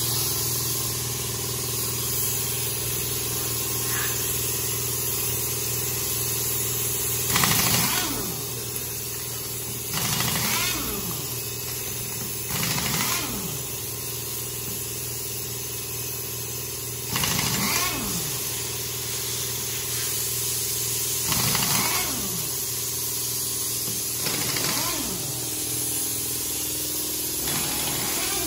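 An impact wrench works the lug nuts of a heavy truck's front wheel in about seven short bursts a few seconds apart, several of them ending in a falling whine. A steady engine-like drone runs underneath.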